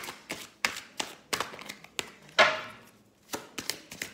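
A deck of oracle cards being shuffled by hand: an uneven run of sharp card slaps and taps, the loudest about two and a half seconds in.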